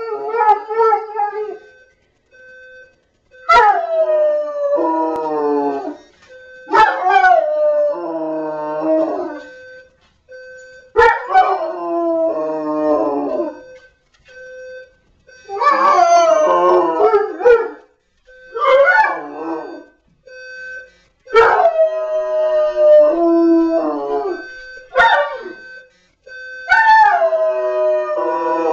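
Rhodesian Ridgeback howling, a string of long drawn-out howls that slide down in pitch with short pauses between them. The dog is set off by an electronic alarm clock, which beeps in a steady on-off pattern underneath.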